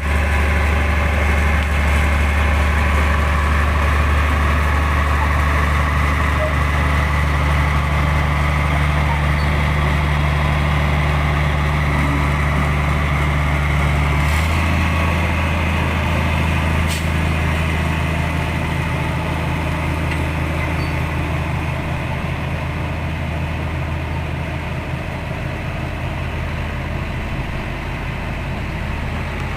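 Nissan CWA260X truck's diesel engine running steadily. Its note shifts slightly upward about halfway through as the engine speed changes.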